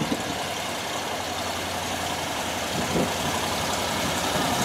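Ford C600 tilt-cab truck's engine running steadily at low speed as the truck rolls slowly closer, with a brief knock about three seconds in.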